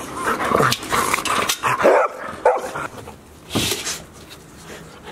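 73-day-old golden retriever puppies barking in short, high yaps several times over the first three seconds, with one more sharp bark a little later, then quieter.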